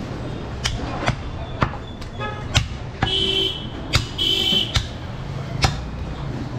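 Butcher's cleaver chopping goat meat and bone on a wooden chopping stump: about seven sharp strikes at an uneven pace. Two short high buzzing tones sound a little after the middle, over a steady background din.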